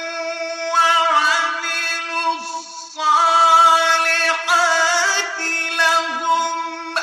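Melodic Quran recitation (tajweed): a single voice holding long drawn-out notes with ornamented turns in pitch, pausing briefly about three seconds in.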